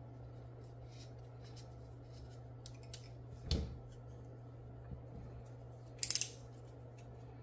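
A dull knock about three and a half seconds in as a plastic tube cutter is set down, then the loudest sound, a quick run of about four sharp clicks about six seconds in, from a snap-off utility knife's blade being slid out. A faint steady low hum sits underneath.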